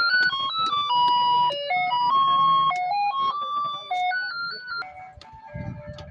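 Electronic melody of clear single notes stepping up and down in quick succession, thinning out in the last second or so.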